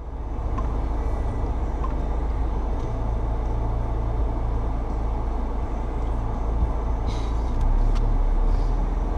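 Jeep Wrangler engine idling steadily, a low even rumble.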